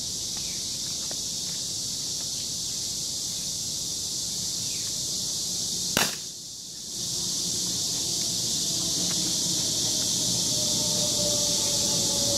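A single sharp revolver shot about halfway through, over a steady high buzz of insects.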